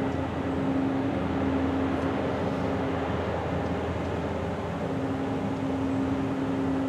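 Steady low drone of a passing ship's engines, with a hum that holds one pitch throughout.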